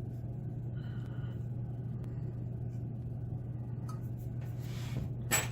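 Faint clicks and scraping as a long metal shim is worked into a picked padlock's cylinder, with a sharper click near the end, over a steady low hum.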